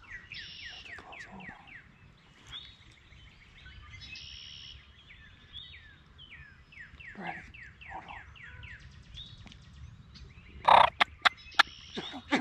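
Small birds sing throughout with rapid runs of quick falling chirps, while strutting wild turkey gobblers are close by. Near the end comes a loud turkey gobble, followed by a few sharp clicks.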